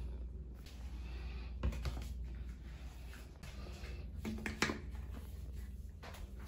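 Plastic toiletry bottles and tubes being handled and set down on a tiled shower shelf: a few light knocks, one about two seconds in and two more around four and a half seconds, over a low steady hum.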